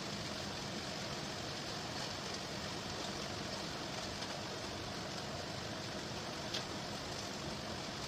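Steady background hiss, even in level throughout, with a single small click about six and a half seconds in.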